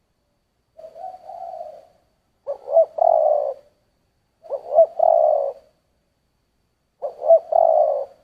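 Spotted dove cooing in the low 'thổ' voice prized by Vietnamese dove keepers: four phrases roughly two seconds apart, each a couple of short notes followed by a longer coo. The first phrase is softer than the rest.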